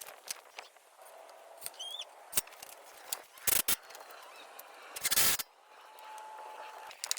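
Scattered knocks and scrapes from work on wooden fence boards, with a longer scraping rush about five seconds in. A short bird chirp comes about two seconds in.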